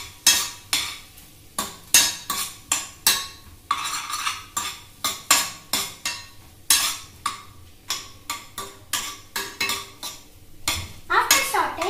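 Metal spoon scraping and stirring sweet corn kernels around a stainless steel frying pan, about two strokes a second.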